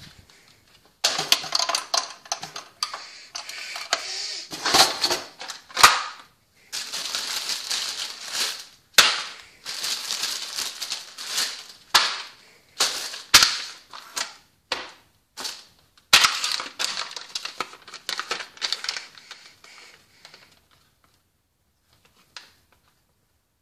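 Rough handling of sandwich ingredients and their plastic packaging: crinkling and rustling in bursts, with sharp knocks and bangs every few seconds, dying away near the end.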